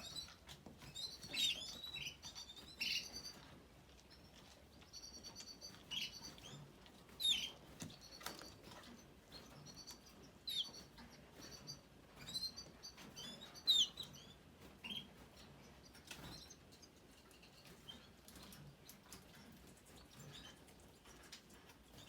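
Young canaries chirping in short, high calls, frequent at first and thinning out over the last several seconds, with light taps and clicks from the birds moving and pecking in the cage.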